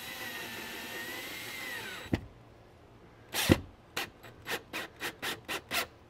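Cordless drill/driver spinning a drywall screw through drywall into a wood backing strip, a steady whine for about two seconds that dips in pitch as it stops. Then a knock, and near the end a run of about ten sharp clicks, roughly four or five a second.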